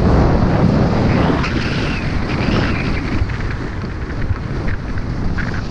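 Wind rushing over the microphone of a skier's camera during a fast descent, with skis scraping over hard, wind-packed snow.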